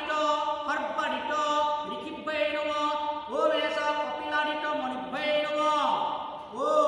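Devotional chanting: a voice holding long, sustained notes in repeated phrases, each phrase sliding up into its note.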